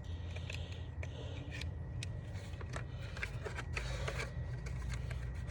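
Scattered light clicks and knocks of small objects being handled, over a steady low hum.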